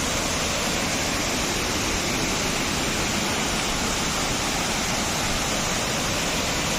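Steady rushing of water, an even unbroken roar with no single splashes or changes.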